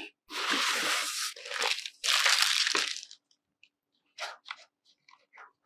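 Packaging being opened and handled: two long stretches of loud rustling and tearing, then a few short, light clicks and rustles.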